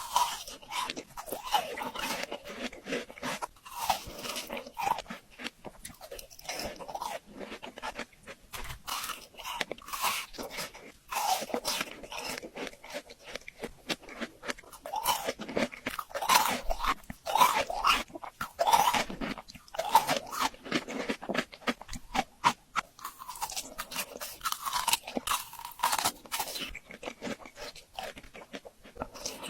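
Close-miked crunching and chewing of frozen fruit: dense, irregular crisp cracks as the icy fruit is bitten and broken up, with wet mouth sounds between them.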